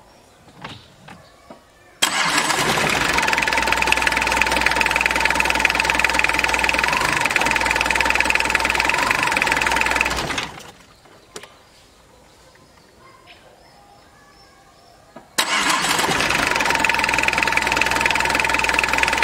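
Tata Indica's four-cylinder diesel engine starting at once with no long cranking and running evenly for about eight seconds, then shut off and dying away; about five seconds later it is started again and fires straight away. With the heater (glow) plugs sorted, it starts quickly and runs smoothly, the morning misfire and long cranking cured.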